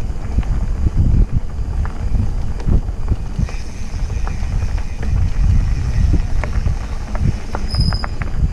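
Mountain bike riding a dirt singletrack trail, with wind buffeting the bike-mounted camera's microphone as a steady low rumble and scattered clicks and rattles from the bike over the rough ground. A brief high chirp comes near the end.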